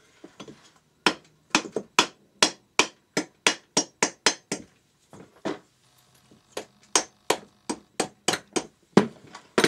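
Repeated hammer blows on a Yamaha XT600 cylinder barrel, about three a second with a short pause around the middle, knocking the barrel loose from the crankcase so it can be pulled off.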